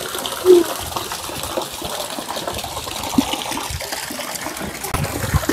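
Water from a tap gushing steadily into a small inflatable paddling pool, with a few light knocks and a louder low thump near the end.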